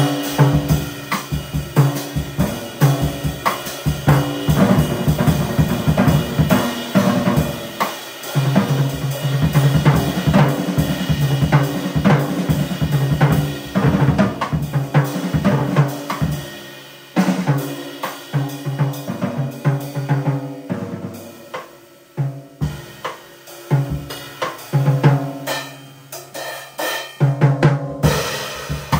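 Live band playing funky mod jazz, the drum kit to the fore with busy snare, bass drum, hi-hat and cymbal hits over held bass notes. The playing thins out and drops in level for a few seconds past the middle, then builds back up.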